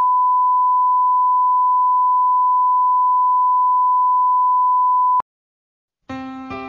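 A 1 kHz reference test tone from a bars-and-tone leader: one steady pure pitch that cuts off with a click about five seconds in. After about a second of silence, music begins near the end.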